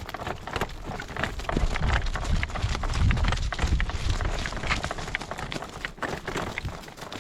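Horse's hooves beating at a trot, with gusts of wind buffeting the microphone, heaviest around the middle.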